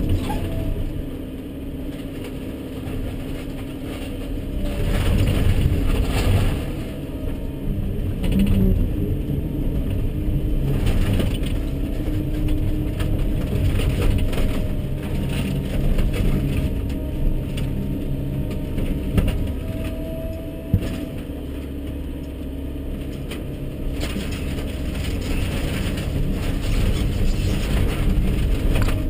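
Volvo 140BL excavator's diesel engine and hydraulics working hard, heard from inside the cab, while the wooden barn's timbers and sheet-metal roof crack and crunch under the bucket. There are a few sharp cracks around the middle.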